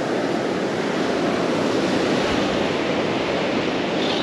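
Surf breaking along a sandy beach, a steady wash of waves, with wind on the microphone.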